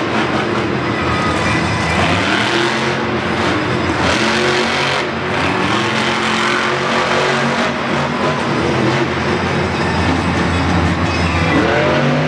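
Monster truck's supercharged V8 engine running loud under throttle, its pitch rising and falling again and again, over a steady wash of noise.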